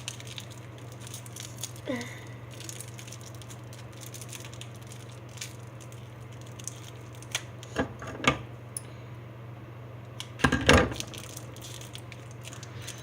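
A few sharp clicks and clatters of small hard objects being handled, the loudest cluster about ten and a half seconds in, over a steady low hum.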